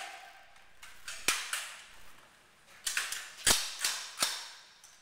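M16 rifles firing 5.56 mm single shots on an indoor firing range: about half a dozen sharp reports at uneven intervals, some close together. The loudest comes about three and a half seconds in. Each report leaves a short echo.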